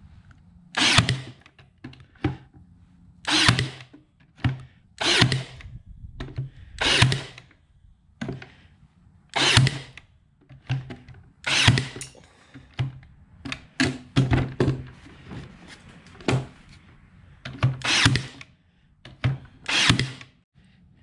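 Ryobi AirStrike cordless nailer firing nails into pine shelf boards again and again, a sharp shot every second or two, each with a brief motor hum.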